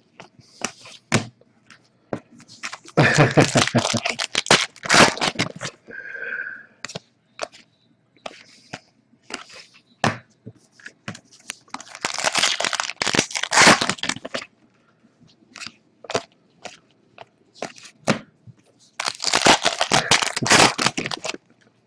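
Foil trading-card pack wrappers crinkling and tearing as packs are opened, in three loud bouts of rustling, with scattered clicks and taps of the cards being handled in between.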